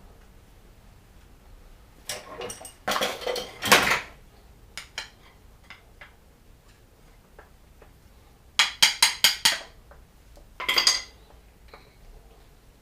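Metal brake pads and caliper parts clinking and rattling as they are handled: a cluster of sharp clinks about two seconds in, a quick run of about five clinks near the middle and another short rattle near the end.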